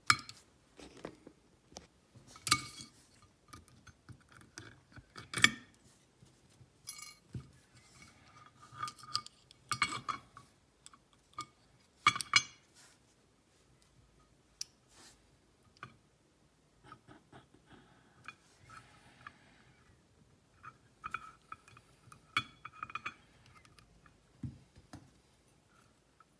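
Small metal lock parts clinking and clicking as a Kwikset SmartKey cylinder is taken apart with a hook pick over a brass parts tray: a scatter of sharp clinks, the loudest in the first half, fainter and sparser later.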